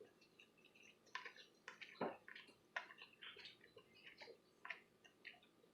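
Faint, irregular wet mouth clicks and smacks of a person chewing barbecue pork ribs, one or two a second, with a slightly stronger smack about two seconds in.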